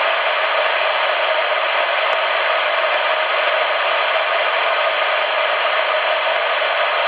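Steady hiss of band noise from a CRT SS 9900 CB radio's speaker, tuned to 27.555 MHz upper sideband, with no station readable.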